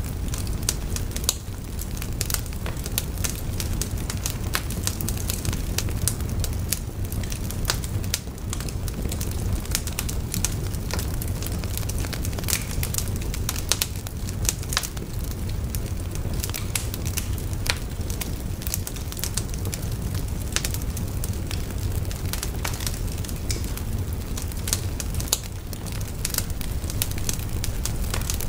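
Wood fire burning: a steady low rumble of flames with frequent, irregular sharp crackles and pops.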